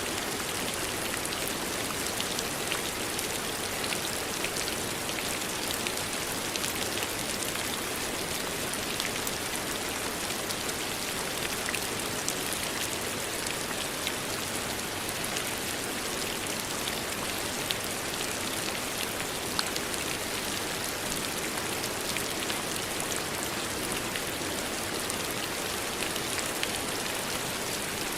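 Steady rain falling on a surface, a dense even hiss with many fine drop ticks throughout.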